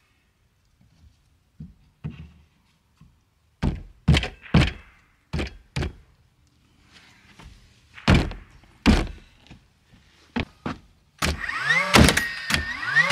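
2x6 boards set and knocked into place on an OSB deck: a series of sharp wooden thunks. About eleven seconds in, a Bostitch battery-powered nail gun whirs up with a rising whine and fires nails into the truss in quick succession.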